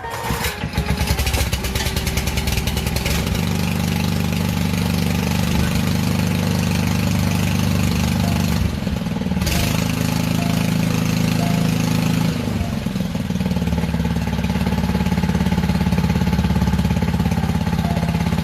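Honda HRU216 Buffalo Pro lawn mower's single-cylinder engine starts and runs steadily after its carburettor, blocked by dirty fuel, has been cleaned out. Its speed dips briefly about nine seconds in and again around thirteen seconds.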